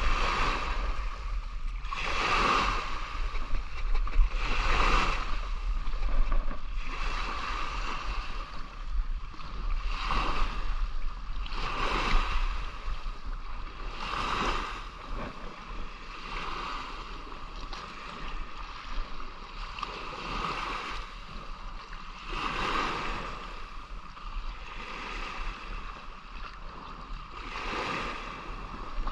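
Shallow seawater sloshing and rushing in repeated surges, about one every two seconds.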